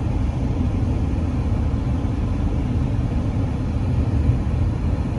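Steady road and engine noise inside a new 2023 Toyota RAV4 cruising at freeway speed: an even low rumble that doesn't change.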